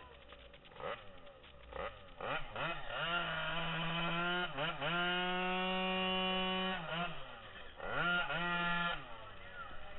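Drag-racing scooter engine blipped a few times, then held at steady high revs for several seconds with one brief dip. It drops back about three quarters of the way in and revs hard once more near the end. The scooter stays put at the start line, typical of a burnout to heat the rear tyre before launch.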